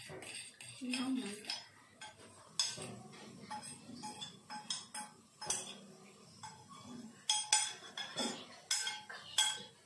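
A spoon stirring and scraping in a stainless-steel bowl, clinking against the metal again and again at an uneven pace, mixing sugar into melted butter for a cake batter.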